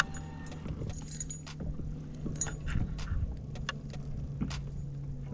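Irregular light clicks and rattles of a fishing lure's hooks and a flopping bass being handled on a boat's deck, over a steady low hum.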